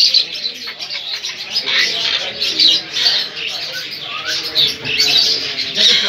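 Many caged birds chirping and tweeting at once, a dense, continuous chorus of overlapping high-pitched calls.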